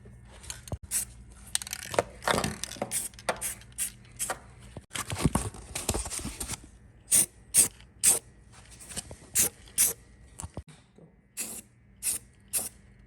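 Aerosol spray can of black gloss paint sprayed in many short hissing bursts, with longer scraping handling noises twice in between.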